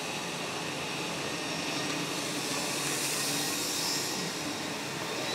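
Philips Turbo Compact TC535 cylinder vacuum cleaner running steadily: a continuous rush of air with a faint thin high whine from the motor.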